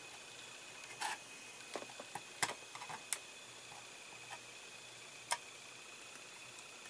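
Scattered small clicks and taps of a screwdriver and hard plastic model parts being handled while a small screw is driven into a plastic panel, irregular and a few at a time, the loudest about a second in and about five seconds in.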